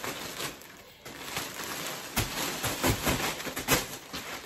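Thin plastic mailer bag crinkling and rustling as it is pulled open and shaken out, with a cluster of louder rustles in the second half.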